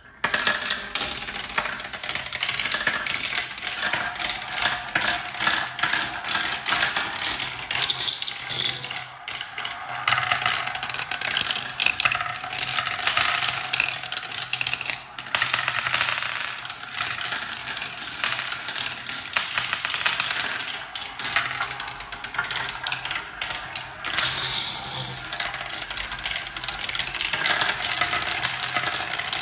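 A glass marble rolling and clattering through a plastic marble run: a steady rattle of quick clicks as it runs down the chutes and stair tracks. It starts suddenly as the marble is dropped into the funnel.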